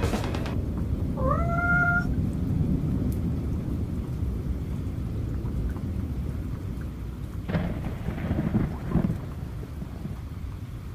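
Rain with a steady low rumble of thunder. About a second in comes a short cry that rises and then holds its pitch, and near the end the thunder swells twice.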